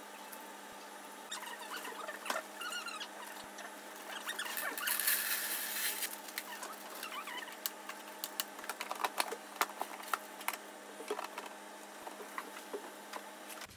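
Cat litter pellets poured from a plastic bag into a plastic litter tray, a loud hiss and rattle about four to six seconds in, followed by many scattered clicks and knocks as the tray and its plastic hood are handled. A few short high squeaks come about two seconds in.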